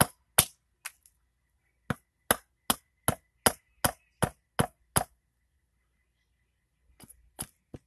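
Short, light hatchet chops into a cherry spoon blank standing on a stump chopping block, shaping the neck beside the bowl on its second side. Three quick chops, a short pause, then a steady run of about nine chops at roughly two and a half a second that stops about five seconds in; a few faint knocks near the end.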